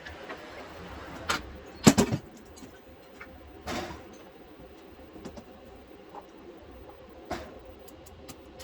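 A few sharp knocks and clinks, the loudest a double knock about two seconds in, with smaller ticks scattered between, over a steady low background.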